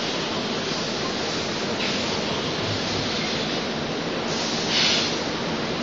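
DKW12T six-head extrusion blow molding machine running: a steady mechanical noise, with a short hiss about two seconds in and a louder hiss near the end.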